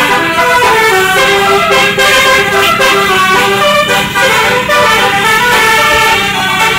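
Telolet 'basuri' bus horn playing a tune: a quick run of short pitched notes, one after another without a break, over a steady low hum.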